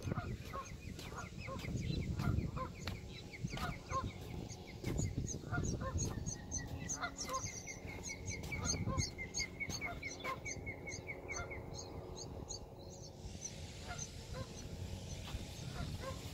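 Geese honking over and over in short, quick calls, with a run of short high chirps rising slightly in pitch through the middle.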